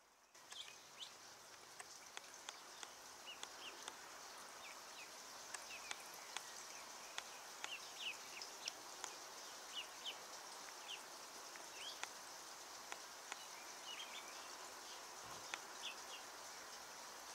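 Mallard ducklings giving short, high peeps, scattered irregularly about two a second, over a steady faint outdoor hiss.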